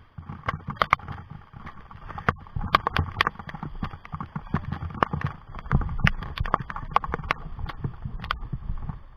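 Footsteps crunching on loose river gravel and stones, an irregular run of sharp crunches over a low rumble.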